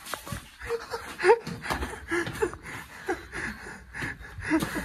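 Breathless gasps and short, breathy laughs in quick succession, with a few small knocks mixed in.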